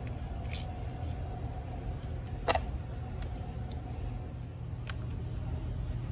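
Light clicks and taps of a metal intake block-off adapter being handled and slid onto a chainsaw's carburetor mounting studs, with one sharper click about two and a half seconds in, over a steady low hum.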